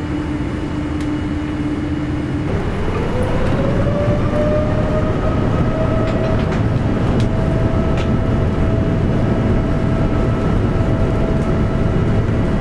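Jet engines of a Boeing 787 Dreamliner heard inside the cabin, spooling up over a steady rumble: a whine rises over about two seconds and then holds steady, as the engines come up to takeoff thrust.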